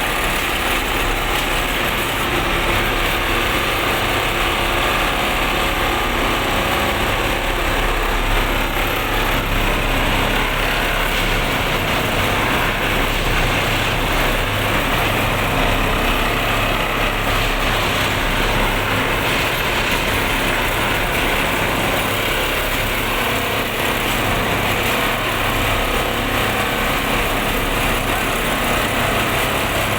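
Industrial machine running steadily with a loud, continuous mechanical din and a low hum.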